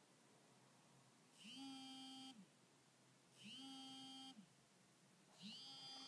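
Sony smartphone vibrating for an incoming call: three faint buzzes, each about a second long and about two seconds apart, each winding up in pitch at the start and down at the end.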